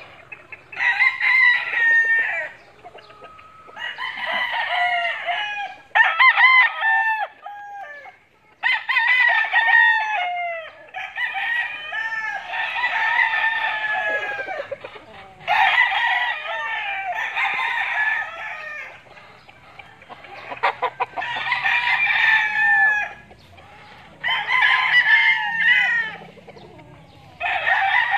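Several gamecock roosters crowing one after another, about ten crows of a second or two each, some running into each other.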